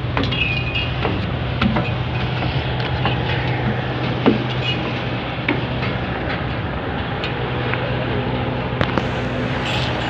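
Ship's engine running with a steady low drone, mixed with wind and water noise, and a few short knocks on the steel deck.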